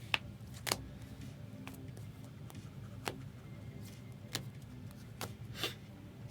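Light, scattered clicks and taps of trading cards being handled on a table, about six in all, over a low steady hum.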